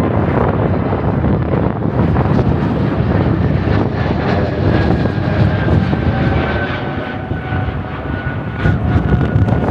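Twin-engine jet airliner climbing out overhead after takeoff: loud, steady jet engine noise with a faint whine that slides slightly lower in pitch over the second half.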